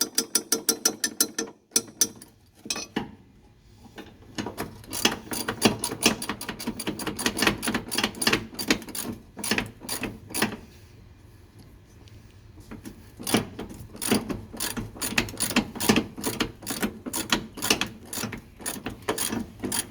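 Hand ratchet wrench clicking in quick runs of back-and-forth strokes as it turns a hinge bolt, pausing briefly about two seconds in and again around eleven seconds in.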